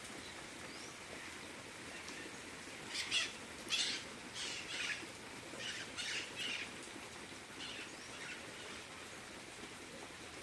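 Steady rain hiss, with a bird giving a run of about ten short, harsh calls between about three and eight seconds in.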